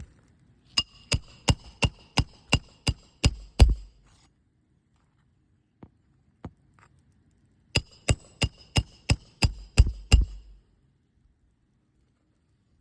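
Roofing hammer driving roofing nails through a roof snake under a shingle: two runs of about nine and eight quick, even ringing blows, each run ending on a heavier blow as the nail is set home.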